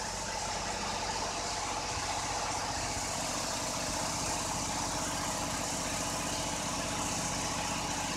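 Vacuum pump of a vacuum emulsifying mixer running steadily, an even mechanical hum.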